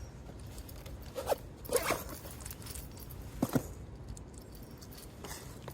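A few short rustles and scrapes from handling clothing and fishing tackle at close range, over a low steady rumble.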